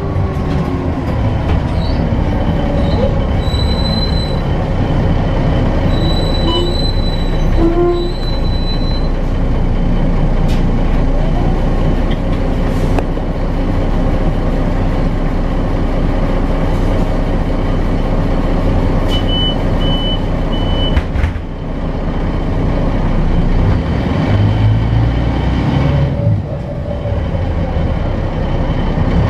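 Cabin sound of an articulated diesel city bus under way: steady engine and drivetrain drone with road noise and squeaks and rattles from the body and fittings. A whine slides down in pitch in the first few seconds, and the level dips briefly about two-thirds of the way through.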